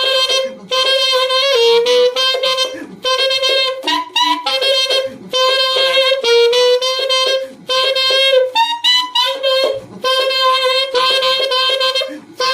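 Saxophone holding the note A and repeatedly switching to a false fingering, with three extra keys pressed, which shifts the tone colour and bends the pitch slightly. It plays as a series of held notes about a second long with short breaks between them.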